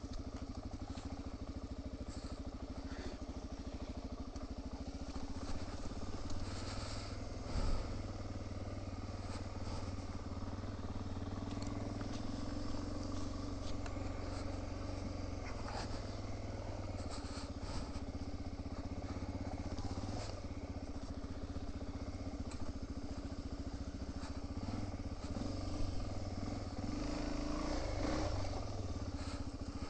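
Trail motorbike engine running as the bike is ridden slowly over a rough, wet track, the engine note rising and falling a little. A sharp knock about seven and a half seconds in, with a few lighter knocks and clatter from the bike over the rough ground.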